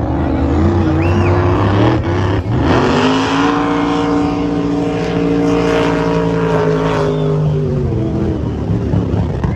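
Supercharged, alcohol-fuelled unlimited race boat engine running hard down the course. Its pitch climbs about three seconds in, holds for several seconds, then drops away near the end as the boat passes.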